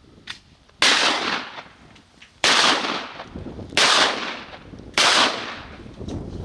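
Four shotgun blasts about a second apart, each trailing off over about a second, as the hunters fire at ducks over the pond.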